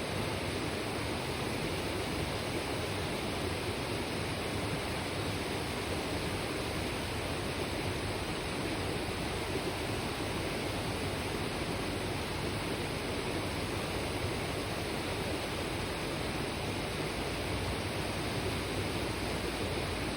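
Mountain river rushing and babbling over rocks, a steady, unbroken water noise.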